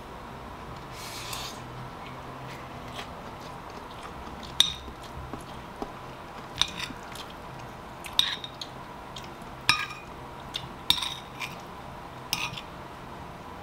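Metal spoon clinking and scraping against a ceramic bowl as fried rice is scooped out: a soft scrape early, then a series of sharp clinks roughly every one and a half seconds from about four seconds in.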